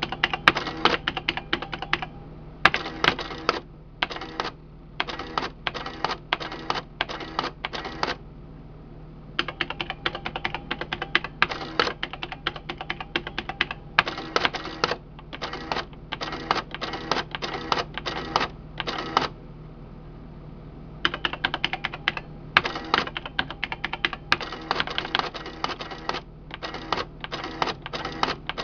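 Burroughs C2000-series printing calculator's print mechanism clattering as it prints lines of figures onto its paper tape, in runs of rapid impacts broken by short pauses, over a steady low hum.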